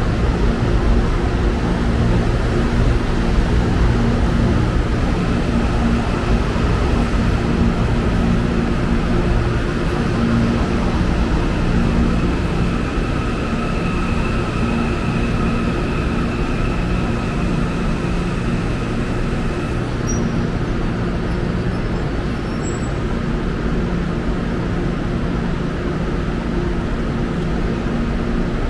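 Electric commuter train running at a station platform: a steady low rumble and hum. A faint high whine runs through the middle and fades out about two-thirds of the way in.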